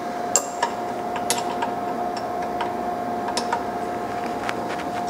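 Scattered light metal clicks and taps as the threaded lock nut on an Instron flexure fixture's bottom assembly is turned by hand up tight against the lower collet, over a steady hum.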